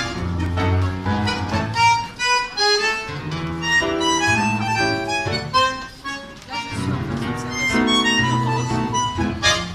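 Live tango played by a trio of piano, bandoneón and guitar. The bandoneón holds long notes over the piano's rhythmic bass line.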